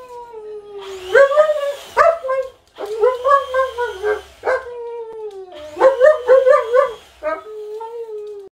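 Dog making a string of long, wavering howl-like whines, about six in a row, several sliding down in pitch at their ends.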